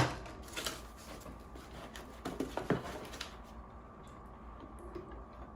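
Plastic parts of a K-Cup pod holder being handled and set down: a sharp knock at the start, then a few light taps and clicks.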